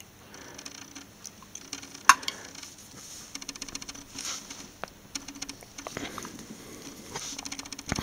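Fingers working and pulling the scored outer sheathing off a 12-gauge speaker cable: a run of small crackles and ticks, with one sharper click about two seconds in.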